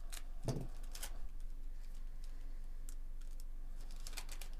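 Foil trading-card pack wrapper crinkling and crackling as it is torn open and the cards are slid out, in short sharp crackles with a cluster near the end. A soft low thump about half a second in.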